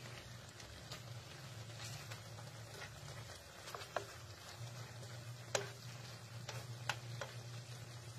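Spatula stirring squid and eggplant in a frying pan: faint sizzling with a few sharp clinks of the spatula against the pan, over a steady low hum.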